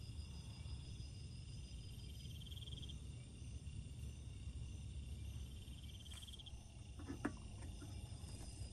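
Night insects calling at the forest edge: a short, pulsed trill repeats about every three seconds over a steady high insect drone and a low background rumble. A few sharp clicks come about seven seconds in, one of them a louder knock.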